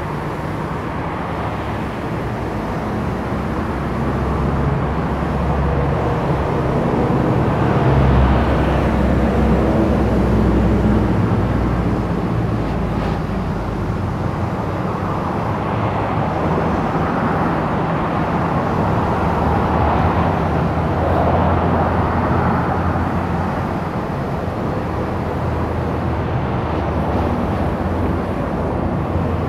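Street traffic: a steady rumble of engines and tyres, swelling twice as vehicles, city buses among them, pass close by.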